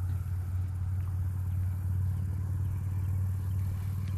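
A motor running steadily with a low, even hum that holds one pitch.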